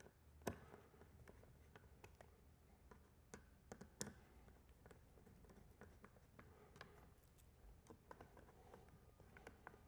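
Faint, scattered clicks and small knocks of screws being dropped into a plastic rudder mount and turned in with a hand screwdriver. The sharpest click comes about four seconds in.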